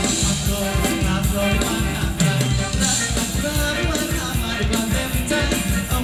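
Live band playing upbeat Thai ramwong dance music with a steady drum beat.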